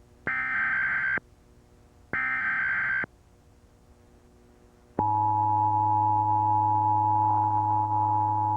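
Emergency Alert System SAME header: two bursts of digital data warble, each just under a second long and a second apart. About five seconds in, the steady two-tone EAS attention signal begins abruptly, with a low hum underneath.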